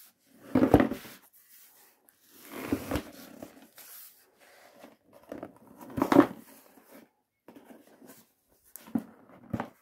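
Cardboard shipping box being handled and turned over by hand: four separate bursts of rubbing, scraping and dull knocks.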